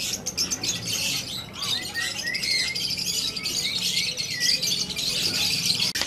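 Many caged birds chirping and chattering at once, a dense, unbroken mass of high calls with short up-and-down whistles through it; budgerigars, whose warbling chatter is part of it, are among the birds.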